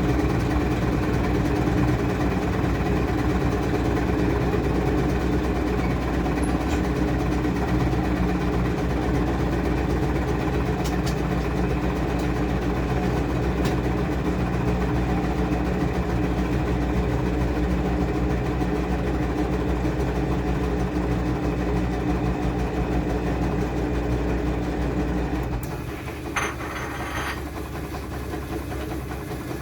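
Washing machine running with a steady motor hum; about 26 seconds in, the deep part of the hum stops and the sound gets quieter, with a brief hiss.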